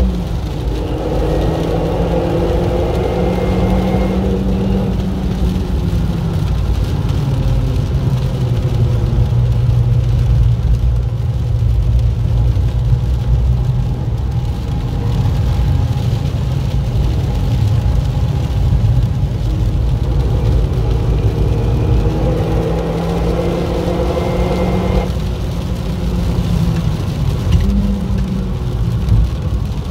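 Renault Mégane's engine heard from inside the cabin while lapping a wet track, its note rising and falling with the throttle and a steady low drone through the middle stretch, over a constant hiss of tyres on standing water and rain.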